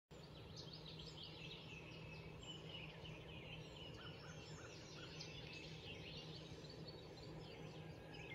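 Faint birdsong from several birds: many quick chirps and short downward-sweeping notes, over a faint steady low hum.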